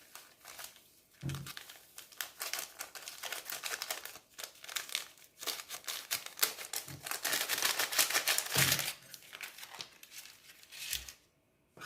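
Sachets of baking powder crinkling and tearing as they are opened and emptied into flour: a fast, dense rustle that stops near the end.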